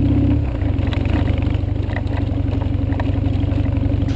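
BMW R1100GS motorcycle's boxer-twin engine running as the bike rides a gravel track, heard from on board with wind on the microphone. The engine note drops back about half a second in, and scattered clicks of loose stones run through the rest.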